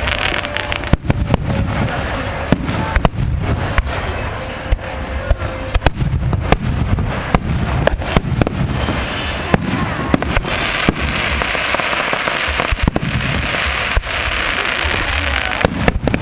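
Fireworks display: many sharp, irregular bangs of exploding fireworks all through, with a denser crackling hiss swelling in the middle.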